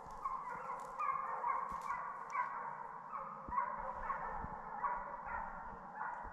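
A pack of hunting hounds baying in full chase on a deer, many voices overlapping into a continuous din.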